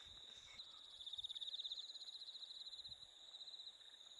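Faint crickets trilling at night: a steady high-pitched trill, with a louder run of quick pulsing chirps between about one and two seconds in.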